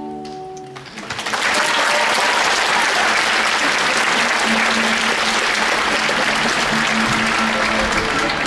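An orchestra's held chord cuts off just under a second in, and the audience breaks into loud applause that continues; about halfway through, a low held note from the orchestra sounds under the clapping.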